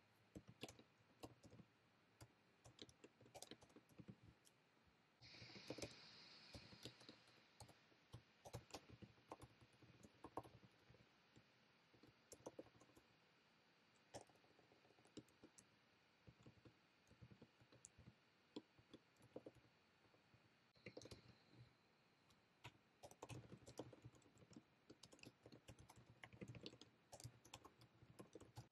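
Faint typing on a laptop keyboard: soft, irregular key clicks coming in bursts with short pauses. A brief soft hiss comes in about five seconds in.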